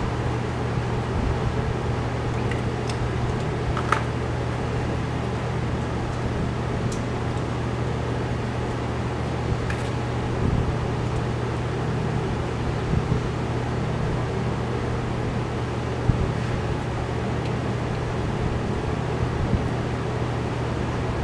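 Steady low machine hum, like a fan running, with a few light clicks and taps as metal engine parts and timing chain are handled on the bench.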